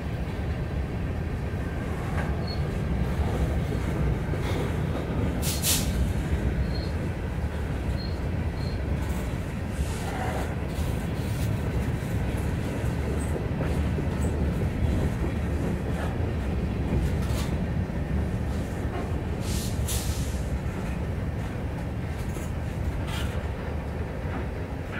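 Freight train's covered hopper cars rolling past at close range: a steady low rumble of steel wheels on the rails, with a few sharp clanks, the loudest about six and twenty seconds in.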